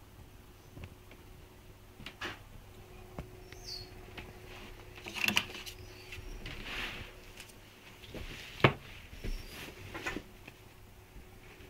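Rustling and light clicks of a shirt on a plastic hanger being handled close to a phone's microphone, irregular, with one sharp click about three-quarters of the way through.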